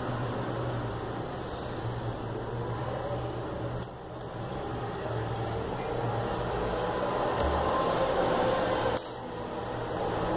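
A steady low machine hum with background noise, and a few faint light clicks.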